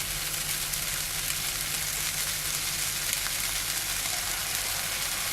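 Chopped cooking apple frying in hot oil and honey in a pan, a steady sizzle.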